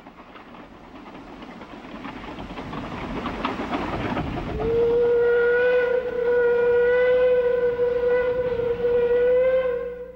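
Steam locomotive running, its noise growing louder for about four seconds, then one long steady whistle blast on a single note that holds for about five seconds and cuts off abruptly.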